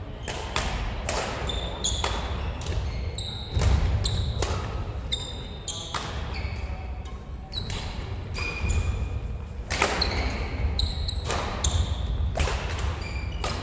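Badminton rackets striking a shuttlecock and shoes squeaking on a wooden court floor, a steady run of sharp hits with short high squeaks in between, echoing in a large sports hall.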